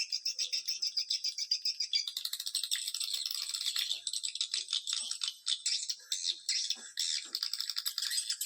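Swiftlet call recording: a dense, fast, high-pitched rattling chatter of swiftlet twitters and clicks, thinning briefly around the middle. It is a lure call played to draw swiftlets into a nesting house.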